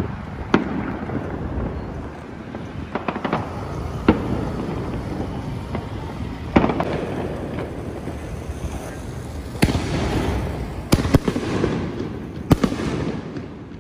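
Fireworks going off around the neighbourhood: about nine sharp bangs at uneven intervals over a continuous low rumble.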